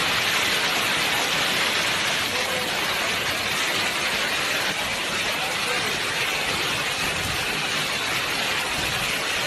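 Heavy rain pouring down in a storm, a steady hiss.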